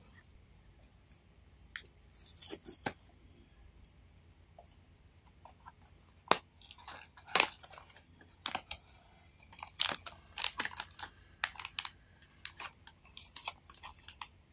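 Cardboard blind box and its packaging being handled and opened by hand: scattered crinkling, rustling and sharp taps, a short flurry about two seconds in and a denser run from about six seconds on.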